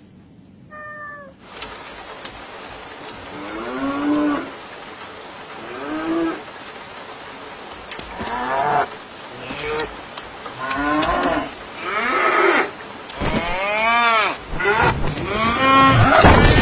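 Cows mooing repeatedly, about seven calls that grow louder and come closer together toward the end, over a steady hiss of rain. A short high squeak sounds about a second in.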